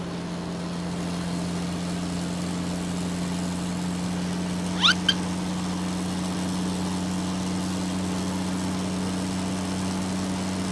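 Truck engine sound effect running steadily, slowly getting a little louder. About five seconds in come two short, high, rising squeaks.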